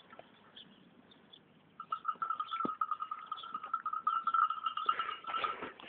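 A young donkey calling: a thin, steady high note held for about four seconds, starting about two seconds in.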